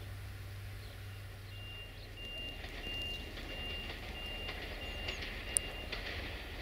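Railway level-crossing warning signal beeping a steady high tone, about seven beeps at roughly one and a half a second, starting about a second in: the crossing is warning of an approaching train.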